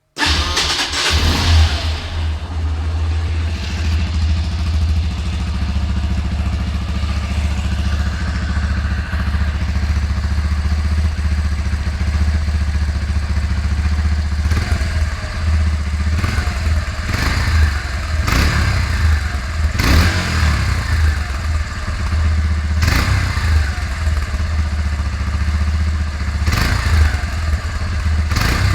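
SYM Wolf 125cc motorcycle engine starting, then idling with the throttle blipped several times. The exhaust runs without a catalytic converter or end tip, so it sounds open and loud.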